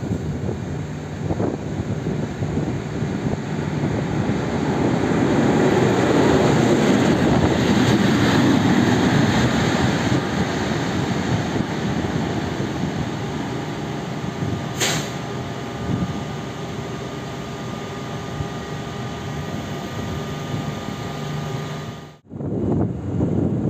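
SM31 diesel shunting locomotive running light at low speed past the platform: its diesel engine running steadily over the rumble of wheels on the rails, loudest several seconds in. A short sharp hiss about halfway. Near the end the sound cuts off abruptly and another diesel locomotive's engine takes over.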